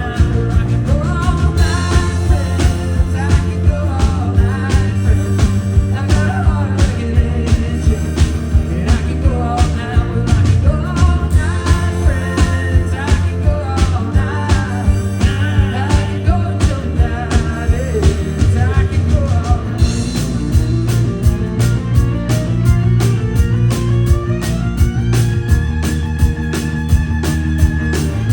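Rock band playing a song with a steady drum beat. Late on, a long note slides up steadily in pitch.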